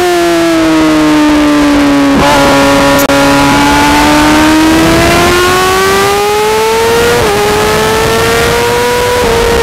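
Race sportbike engine heard onboard at track speed. Its pitch sags through a corner, with a brief blip about two seconds in. It then winds up hard under acceleration, with an upshift about seven seconds in and another about nine seconds in.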